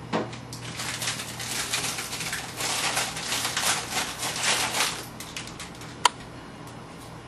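A cat lapping liquid from a bowl: a fast run of small wet clicks that fades out about five seconds in. One sharp click about six seconds in.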